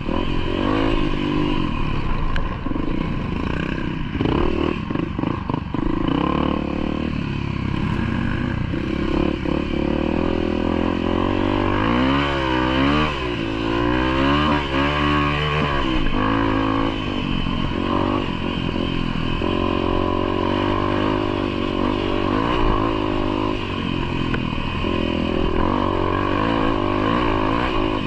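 Off-road vehicle engine, most likely a motorcycle, running under changing throttle. Its pitch swings up and down in several quick revs around the middle, with clattering knocks from the rough trail.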